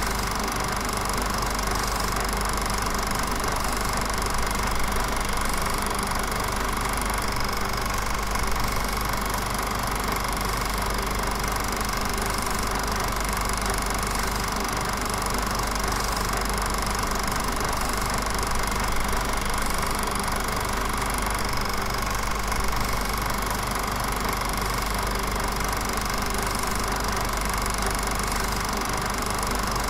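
Steady drone of car engine and road noise heard inside the car's cabin, with a constant hum and hiss that does not change.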